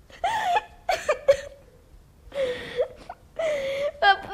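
A boy's stifled giggling: a few short, high giggles, then two longer breathy ones in the second half.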